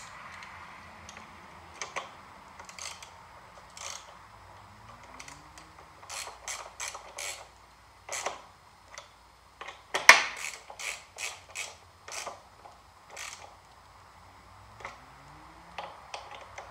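Hand ratchet wrench clicking as bolts are run back in and snugged down on a mower engine's oil cooler, in a few short runs of rapid clicks with single clicks and metal taps between; the loudest run comes about ten seconds in.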